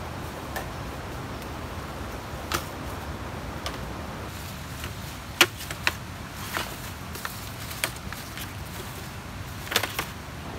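Cut green bamboo poles knocking against each other as they are gathered and laid in a pile: a scattering of sharp, hollow knocks, the loudest about five and a half seconds in and a couple more near the end, over steady low background noise.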